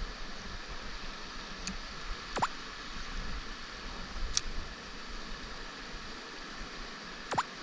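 Mountain stream water flowing steadily, with a few brief sharp clicks over it.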